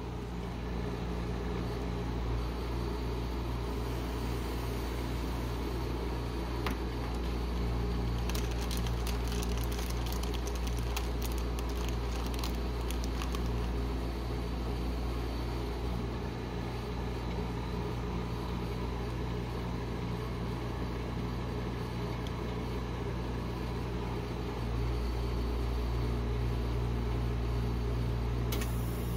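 Steady low hum of a rolled-ice-cream machine's refrigeration unit running under its frozen steel plate, with a run of faint light clicks about eight to thirteen seconds in.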